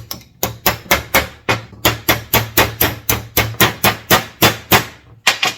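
A hammer striking metal parts of a steering gear box over and over, a steady run of about four blows a second that stops shortly before the end.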